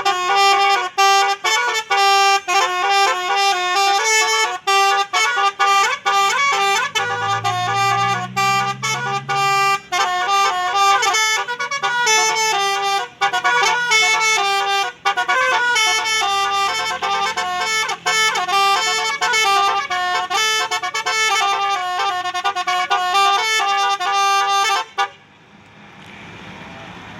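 Indonesian bus 'telolet' musical horn, a Basuri-type multi-tone air horn, playing a fast melody of stepping notes. It cuts off abruptly near the end, leaving steady background noise.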